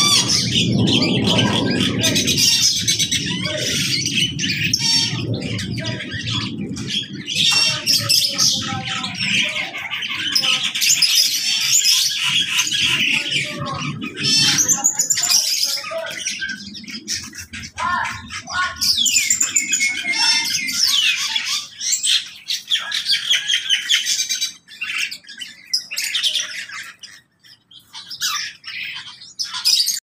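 A mixed aviary of cockatiels, ring-necked parakeets and other cage birds chirping and squawking over one another, with quick trills and sweeping calls. Under it in the first half a low rumble of a passing aircraft fades out about halfway.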